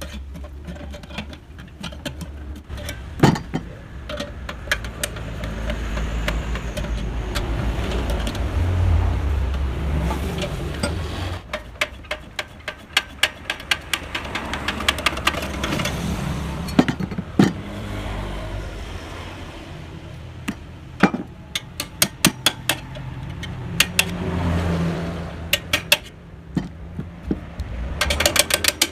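Sharp knocks, several in quick runs, during work on a motorcycle exhaust muffler, over a low rumble that swells and fades a few times.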